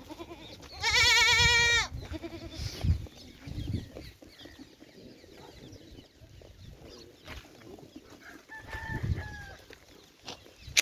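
A goat bleats once, loud and quavering, for about a second, starting just under a second in. A fainter, higher animal call that falls off at its end comes near the end.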